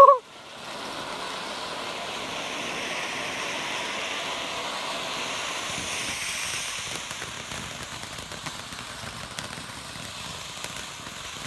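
Fountain-type firework spraying with a steady hiss that slowly fades in the second half, with scattered crackles near the end.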